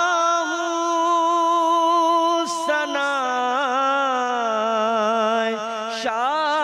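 A man singing a manqabat solo, drawing out long, wavering, ornamented notes, with two short breaks for breath, one about two and a half seconds in and one near the end.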